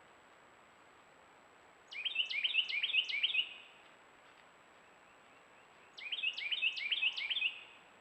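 A songbird singing two short phrases about four seconds apart, each a quick run of four or five repeated slurred whistled notes, over a faint steady hiss.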